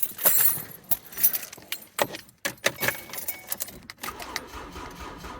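A bunch of car keys jangling, with irregular light clicks and rattles as they are handled at the ignition. A faint low hum comes in near the end.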